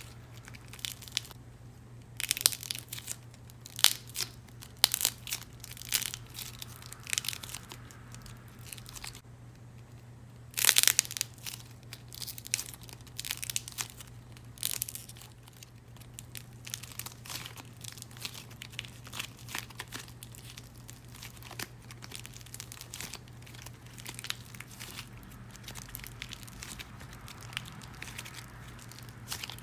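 Dried craft clay being bent and snapped by hand, cracking apart in sharp crackles and snaps. The loudest cluster of cracks comes about ten to eleven seconds in; after that a long run of finer crackling follows.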